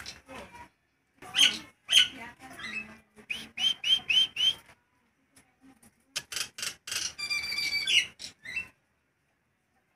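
Caged jalak nias, a myna, calling loudly. Harsh squawks come first, then five quick rising whistles, then a burst of chattering with a held whistle. It stops shortly before the end.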